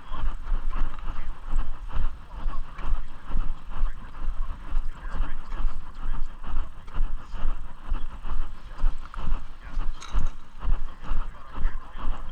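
Footsteps at a steady walking pace, about two a second, each with a low thump, over a steady rumble and hiss.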